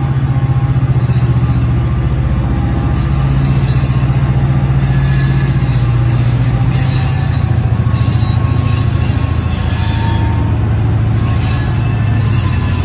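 CSX freight diesel locomotives working under throttle: a loud, steady, deep engine drone with turbocharger sound, its pitch drifting slightly. Faint wheel squeal from the rolling train rides over it.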